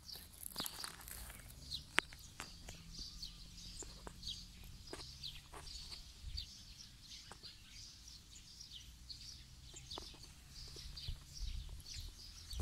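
Outdoor ambience of small birds chirping in short, high, repeated notes over a low steady rumble, with a few sharp clicks.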